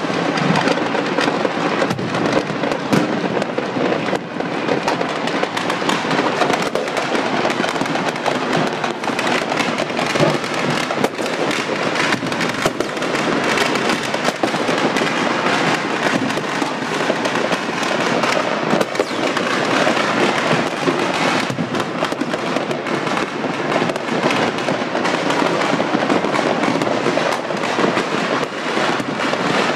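Many fireworks going off at once, a dense, unbroken crackle of overlapping bangs and pops.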